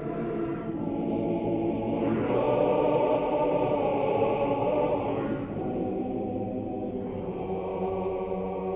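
Background choir music: voices singing slow chant in long held chords, the chord changing about two seconds in and again about five seconds in.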